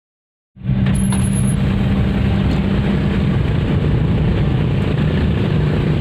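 Engine hum and road noise inside the cabin of a moving car, steady after starting abruptly about half a second in.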